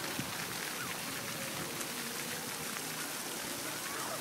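Steady hiss of outdoor city ambience, with distant traffic noise spread evenly and no distinct events.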